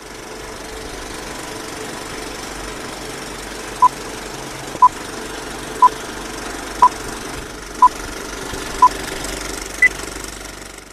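Old-film countdown leader sound effect: the steady clatter of a film projector running, with a short beep once a second from about four seconds in, six at one pitch and a last one higher.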